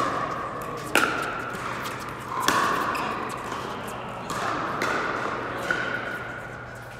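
Pickleball paddles hitting a hollow plastic ball in a rally: a series of sharp pops roughly a second apart, each with a short ringing after it, echoing in a large hall.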